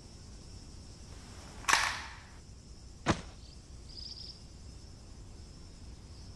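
A toy pistol is fired twice, giving two sharp gunshot-like cracks about a second and a half apart. The first crack trails off in a brief hiss; the second is shorter and sharper.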